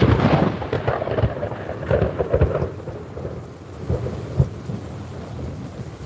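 Thunderclap: a sudden loud crack that rumbles on with several more cracks for about four seconds, then fades. Steady rain falls underneath.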